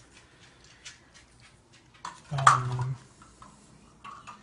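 Light clicks and clatter of kitchen utensils and crockery on a countertop. About two and a half seconds in comes a short, low, humming vocal sound, and a brief higher one follows near the end.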